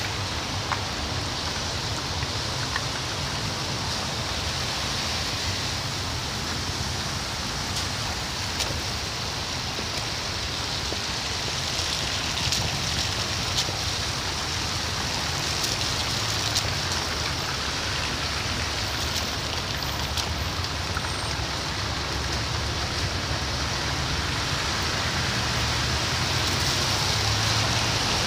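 City traffic on a wet, slushy roadway: a steady hiss of car tyres on the wet road over a low rumble of slowly moving and idling engines. It grows a little louder near the end.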